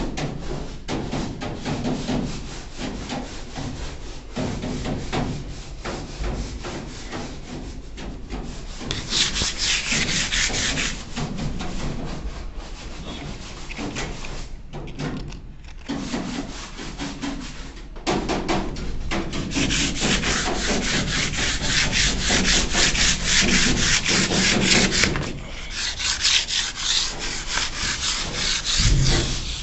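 Sandpaper on a hand block scraping back and forth across a steel plate in rapid strokes, roughing up the surface before painting. The scraping grows louder and brisker for a couple of seconds about a third of the way in and again through most of the last third.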